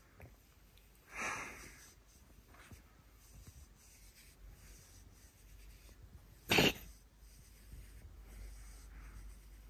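A cat coughing: two short, wheezy hacks, a softer one just after a second in and a sharper, louder one about two-thirds of the way through. It is the lingering cough the cat still has.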